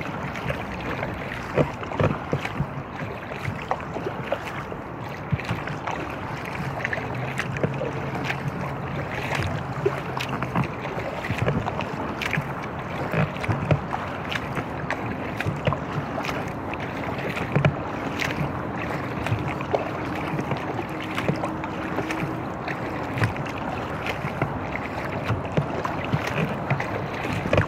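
Inflatable kayak being paddled: irregular splashes and knocks of the paddle and hull over a steady rush of water. A low steady hum comes in for a few seconds about a quarter of the way in, and another a little higher for several seconds after the middle.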